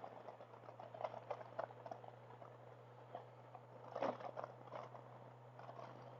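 Faint, noise-suppressed background of a motorcycle ride picked up by a helmet headset microphone: a steady low hum with scattered small crackles and clicks, and a slightly louder crackle about four seconds in.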